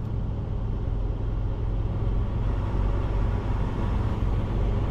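Semi truck's diesel engine running with a steady low rumble, heard from inside the cab as the truck rolls slowly.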